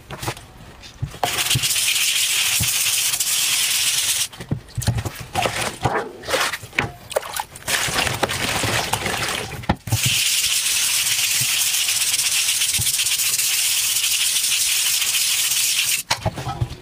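Green onions being swished by hand in a stainless steel bowl of water: irregular splashing and sloshing in the middle, with a steady rush of water before and after.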